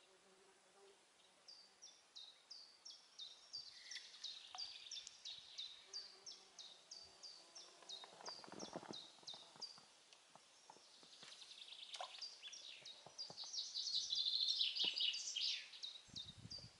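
Small songbirds in the riverside trees: one repeats a short, high, falling chirp two or three times a second, and a denser burst of song builds up near the end. A few soft knocks come about eight seconds in.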